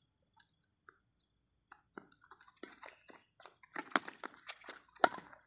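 Badminton rally on a concrete court: sharp clicks of rackets hitting the shuttlecock mixed with shoes scuffing and scraping on gritty concrete, sparse at first and busy from about two seconds in. A sharp crack about five seconds in is the loudest.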